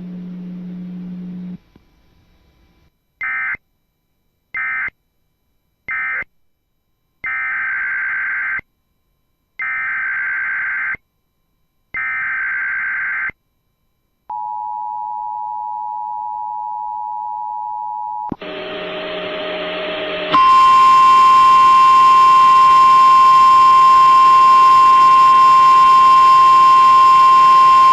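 Emergency Alert System data bursts: three short end-of-message bursts, then three longer header bursts. These are followed by the two-tone EAS attention signal, held for about four seconds. After a brief buzzy tone, a loud, steady NOAA Weather Radio 1050 Hz warning alarm tone begins about 20 seconds in.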